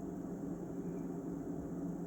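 Steady low hum with a faint hiss, unchanging throughout, like a running fan or room machinery.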